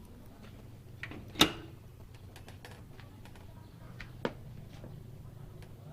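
Clicks and knocks of a bathroom door and its latch being handled: a sharp knock about a second and a half in, another smaller one about four seconds in, with light clicking between.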